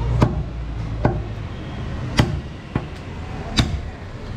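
Large butcher's knife chopping goat meat against a wooden log chopping block: about five sharp knocks, irregularly spaced, roughly one a second.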